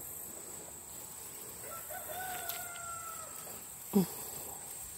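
A rooster crows once, faintly, in one drawn-out call lasting under two seconds, over a steady high insect chirring. A short sharp thump about four seconds in.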